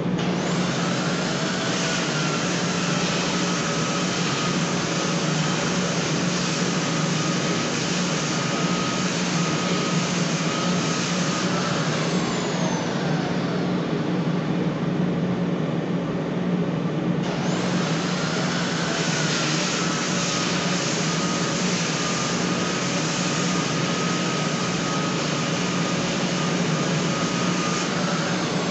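Handheld electric sander working a wooden stair tread. Its motor whines up to speed and runs steadily with the rasp of sanding for about twelve seconds, then winds down. A few seconds later it starts again and runs until it winds down at the very end. A steady hum of other shop machinery runs underneath.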